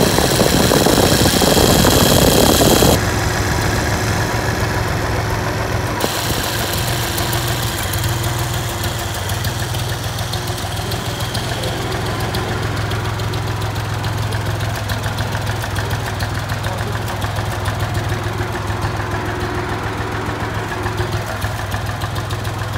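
Ford 3400 tractor's three-cylinder engine idling steadily, with a louder rushing noise over the first three seconds.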